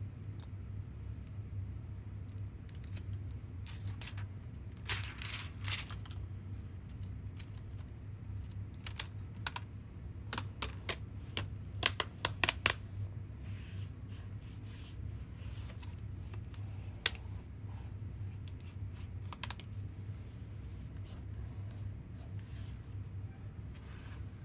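Plastic screen bezel of a Dell Inspiron laptop being pressed back onto the lid. Its clips snap in with scattered sharp clicks, the loudest run coming about halfway through, over a steady low hum.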